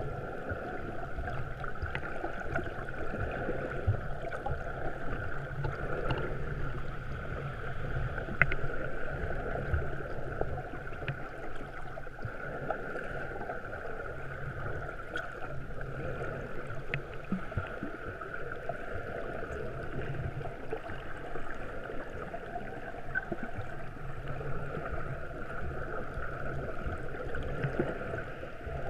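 Muffled underwater noise picked up by a camera in its waterproof housing: a steady rushing hiss and low rumble, with scattered faint clicks.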